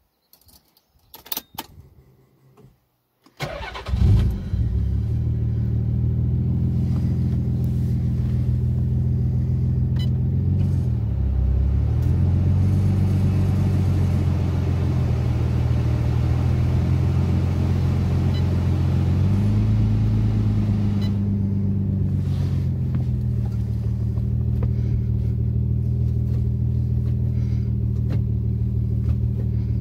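A Nissan 300ZX Twin Turbo's 3.0-litre twin-turbo V6, heard from inside the cabin, starting about three and a half seconds in after a few short clicks, flaring briefly, then settling to a steady idle. The idle dips once and later rises once.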